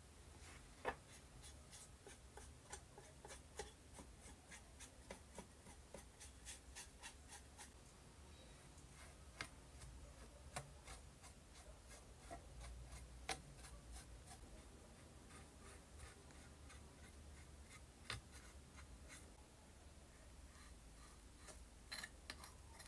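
Faint, irregular small clicks and taps of handwork, denser in the first few seconds and sparser later, over a low steady hum.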